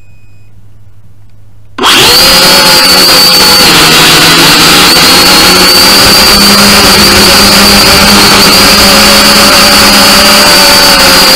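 Small camera drone's electric motors and propellers spin up suddenly about two seconds in and run with a loud, steady high whine as it lifts off the grass, heard through the drone's own onboard microphone.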